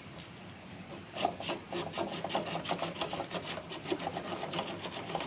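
Quick back-and-forth scraping strokes, about four a second, of hand abrasion on refrigerator copper tubing, starting about a second in: the pipe being cleaned up before it is brazed.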